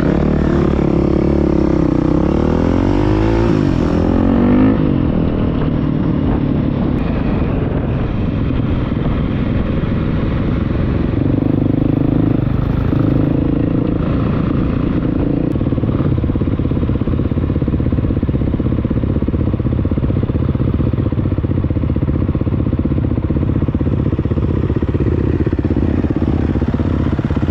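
Dual-sport motorcycle engine running while riding, its pitch rising and falling several times over the first few seconds, then holding steady.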